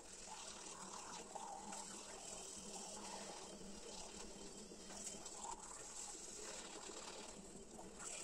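Two people brushing their teeth with manual toothbrushes: a faint, rapid, continuous scrubbing of bristles on teeth.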